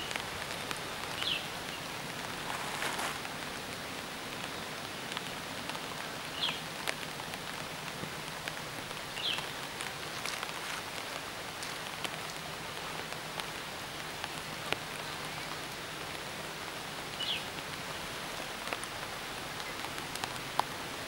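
Steady heavy rain falling, an even hiss, with a few short high chirps every few seconds.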